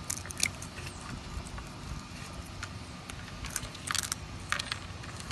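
Young raccoon chewing and crunching a piece of raw carrot, a few sharp crunches about half a second in and a cluster of them around four seconds in, over a steady low rumble.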